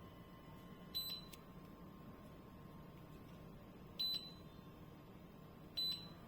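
Three short, high electronic beeps at uneven spacing, about a second in, four seconds in and near the end, over a faint steady hum.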